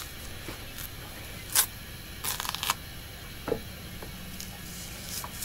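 The thick, tough skin of a ripe plantain being torn off by hand: a few short tearing crackles, with a run of quick crackles about two and a half seconds in.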